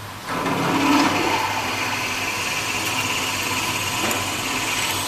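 Drill press with a twist drill cutting into a metal plate clamped in a machine vise, the cut starting about a quarter second in and running steadily, over the low hum of the machine.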